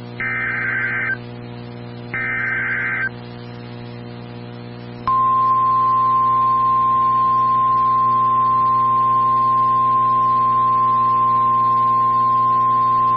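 Emergency Alert System SAME header: two about one-second bursts of warbling digital data tones, two seconds apart. About five seconds in, the weather radio warning alarm tone starts, one steady single pitch that holds without a break, all over a constant low hum from the receiver.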